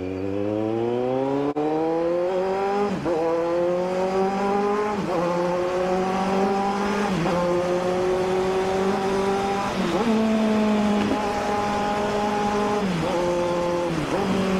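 Kawasaki Z900 inline-four motorcycle engine pulling hard under acceleration. The pitch climbs, then drops sharply at each of several upshifts and settles at a steady cruising speed, with wind rushing past.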